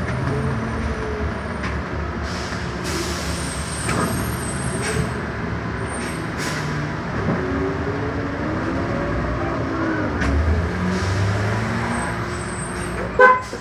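Rental-car shuttle bus engine running and road noise, heard from the driver's cab while the bus moves slowly through heavy traffic. The engine pitch rises and falls gently, there are a few short hisses in the first half, and a short loud tone comes near the end.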